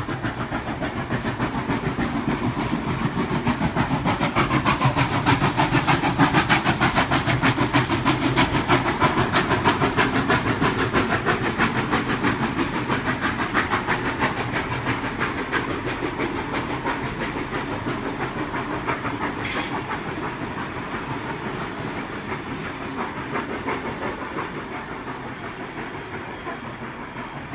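NSW C36-class steam locomotive 3642 passing with its train of passenger carriages: a dense, rapid clatter of wheels on the rails with some steam hiss. It is loudest about six seconds in and fades slowly as the carriages roll by.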